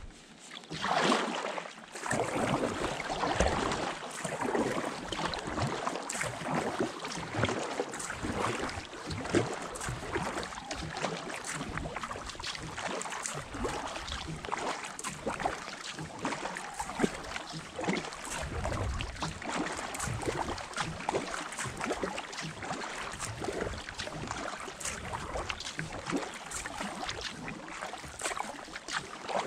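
Kayak paddle strokes in calm water: blades dipping and splashing over and over, with water dripping and trickling off the paddle between strokes, and a louder splash about a second in.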